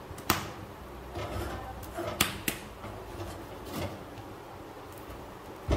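Ears of corn being roasted and turned over a gas burner: a handful of sharp clicks and knocks as the cobs knock against the metal grate and steel stove top, over a low steady rumble.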